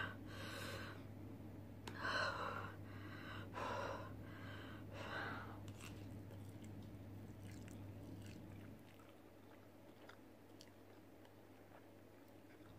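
A person eating very spicy noodles: four sharp, breathy exhalations through the mouth in the first six seconds, a reaction to the chilli burn, then faint chewing and slurping of noodles.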